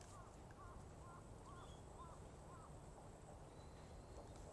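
Near silence, with a faint series of short chirps, about two a second, that fade out after about three seconds.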